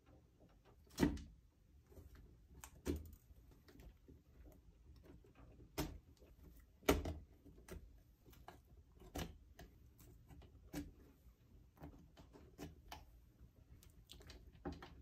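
Irregular clicks and knocks of a metal amplifier power-module panel and its small screws and output transistors being handled on a wooden workbench, the loudest about a second in and about seven seconds in.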